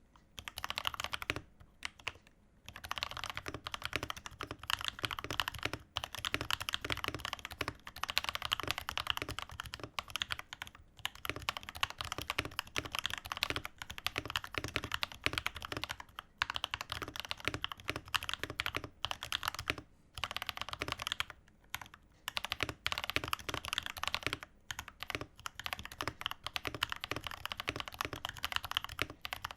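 Mechanical keyboard being typed on continuously: a Redragon K552 with lubed, filmed Akko CS Piano linear switches and lubed plate-mounted stabilisers, in a dampened case, giving a run of muted clacks with a low thud under them. The typing stops briefly every few seconds.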